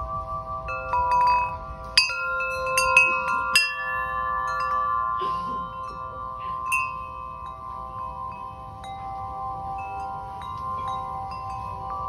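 Large tubular metal wind chime struck by its striker in the breeze. A quick cluster of strikes comes in the first few seconds, then single strikes every second or two. Its several low tones keep ringing together throughout.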